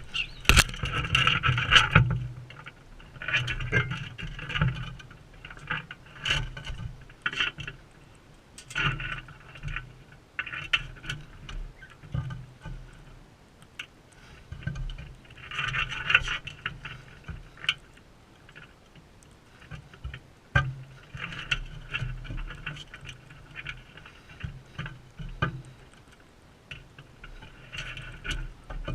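Parrots feeding close to the microphone: irregular scraping, tapping and pattering of beaks and feet on the feeder, in clusters every few seconds.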